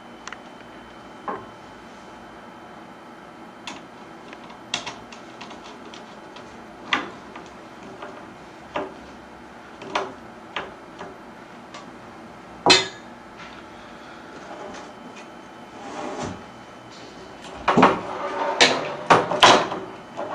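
Curtain track parts being handled and fitted: scattered single clicks and knocks every second or two, then a run of louder clattering knocks near the end.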